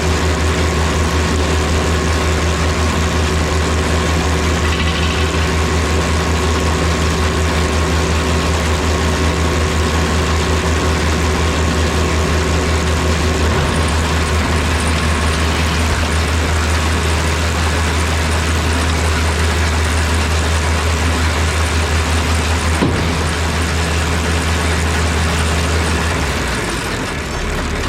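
Tractor diesel engine running steadily while pulling a New Holland BR770A round baler through the hay, with the baler's machinery turning. There is a single sharp knock near the end, and shortly after it the engine note drops as the tractor slows.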